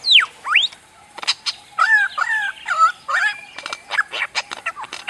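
Superb lyrebird singing a fast, varied run: a steep falling whistle and a rising one, sharp clicks, then a short two-note whistled phrase repeated about four times, ending in quick clicks and short notes.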